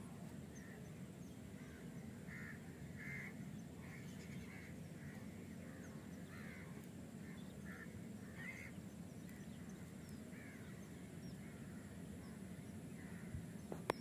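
Faint short bird calls repeating every half second to a second, over a low steady outdoor hum. A single sharp click near the end.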